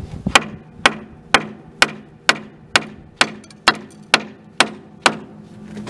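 Copper hammer striking a steel pin on a steam locomotive's eccentric rod, eleven sharp metallic blows at an even pace of about two a second, each ringing briefly. The blows are driving out a stuck pin.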